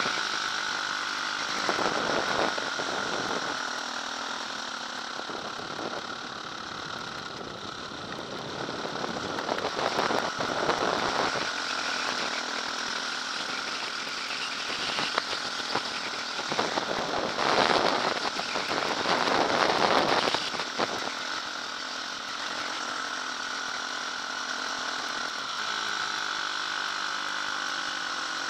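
KTM dirt bike engine running while riding over a rough dirt track, heard from a goggle-mounted camera, with rattling and wind noise; it swells louder several times, most strongly about two-thirds of the way through.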